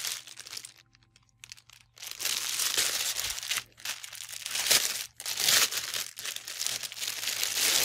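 Thin clear plastic packaging bag crinkling as hands smooth and shift it across a table. The crinkling starts about two seconds in, with louder crackles around the middle.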